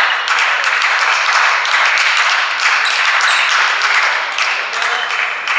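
Spectators applauding, a dense run of many hands clapping that eases off near the end.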